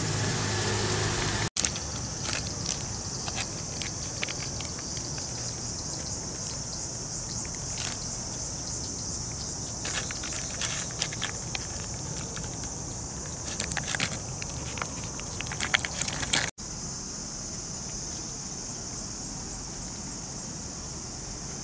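Cat chewing its food close by, with irregular clicking crunches, over a steady high drone of insects.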